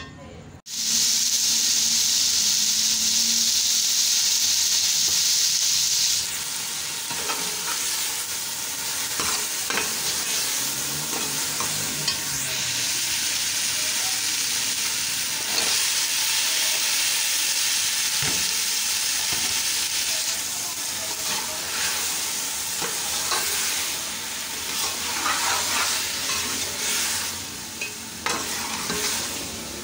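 Fenugreek leaves frying in oil in a metal pot, sizzling loudly for the first few seconds, then a steadier sizzle. A metal spoon scrapes and clinks against the pot as the food is stirred, with cut potatoes frying alongside by the end.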